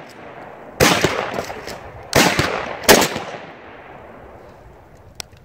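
Three rifle shots from an AR-15-style rifle, each a sharp report that rings out and fades over most of a second; the second and third come less than a second apart. They are a group fired at the paper target to check the scope's zero.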